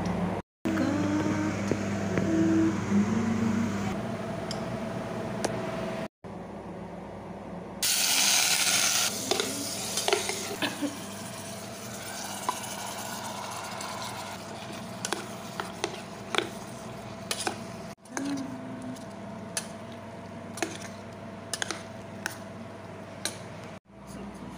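Home cooking sounds over several short cut clips: a steady low hum at first, a burst of hiss about eight seconds in as cut squid goes into a pot on the stove, then scattered light clicks of utensils against cookware.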